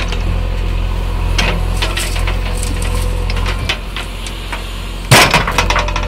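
JCB 3DX backhoe loader's diesel engine running steadily under load, with a steady whine over it, while clods of soil and stones clatter from the bucket into the steel tipper body. Near the end, a loud burst of knocks and scraping as the bucket strikes back into the stony ground.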